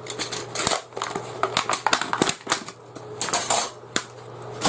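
Steel tent pegs clinking and knocking against each other as they are handled: a quick, uneven run of sharp metallic clicks, a few of them ringing briefly.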